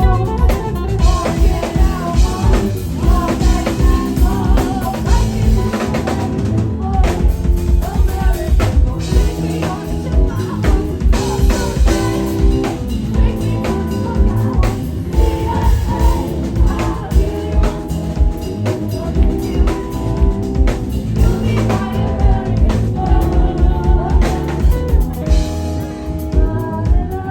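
A live band playing, with a steady drum-kit beat of kick and snare driving the music.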